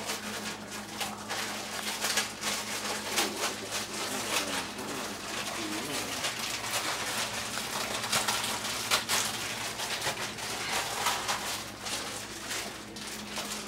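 Kitchen counter work: scattered clinks and knocks of dishes and utensils, over a steady low hum.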